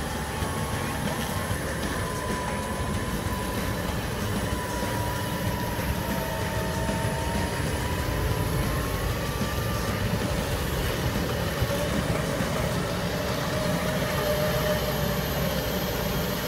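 A 4WD's winch whining steadily as it hauls the vehicle up a steep muddy creek bank, over the low rumble of the vehicle's running engine. The whine drifts slightly in pitch as the load changes.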